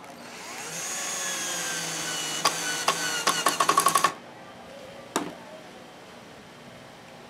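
Cordless drill driving a wood screw into plywood: the motor whine drops slowly in pitch as the screw goes in, and sharp clicks come faster and faster as the screw seats, before the motor stops about four seconds in. A single sharp click follows about a second later.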